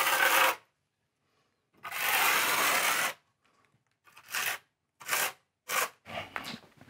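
A notched steel trowel scraping through wet mortar. It makes two longer strokes, then four short ones near the end.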